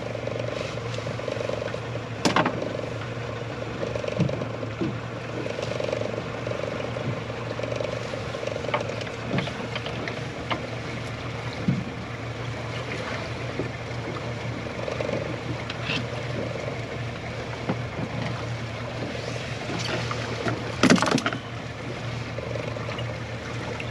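Small fishing boat afloat: a steady low hum with scattered clicks and knocks, while a hooked fish is brought in. The sharpest knocks come about two seconds in and again near the end.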